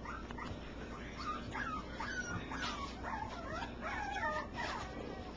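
Young cockapoo puppies whimpering, a run of high, wavering whines from about a second in until near the end.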